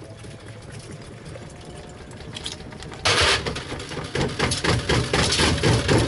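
LG front-loading washing machine running with a brick load in its drum. A low motor hum gives way, about three seconds in, to a sudden loud, rapid clattering and banging as the load pounds around the turning drum.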